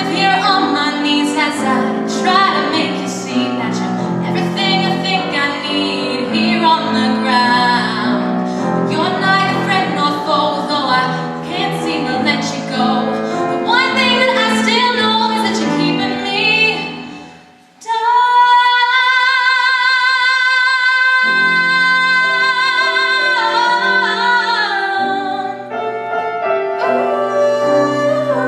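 A woman singing with piano accompaniment. A little past halfway, the music drops away for a moment, then she holds one long high note with vibrato, and piano chords come back in under it.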